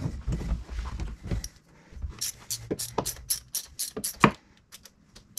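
Hand ratchet clicking in quick runs as the valve-cover bolts are backed out of a Rotax engine. The first second and a half or so holds low knocks and handling noise, and there is one sharper click near the end.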